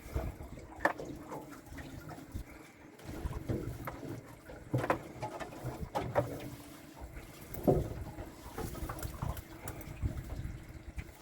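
Water splashing and sloshing in irregular bursts, as something is moved through shallow water.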